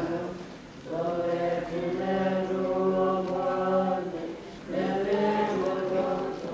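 Voices chanting a Buddhist mantra in long held, melodic notes. The chant breaks briefly for a breath about a second in and again about four and a half seconds in.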